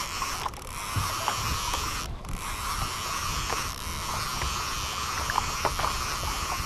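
Spinning fishing reel being cranked steadily, a light mechanical ticking from its gears over steady wind and water noise.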